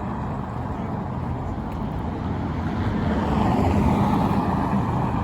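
Steady low rumble of motor-vehicle traffic, growing louder a little past the middle as a vehicle passes.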